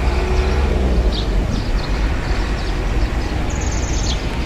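Strong sandstorm wind buffeting the microphone: a steady, heavy low rumble with a rushing hiss over it.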